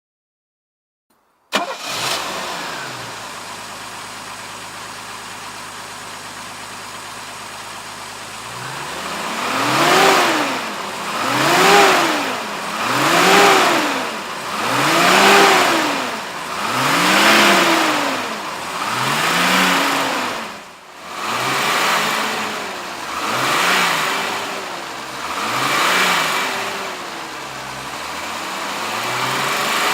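1971 Mercedes-Benz 280SL's fuel-injected straight-six starts up about a second and a half in and idles steadily. From about nine seconds in it is revved over and over, about nine blips of the throttle roughly every two seconds, each rising and falling back.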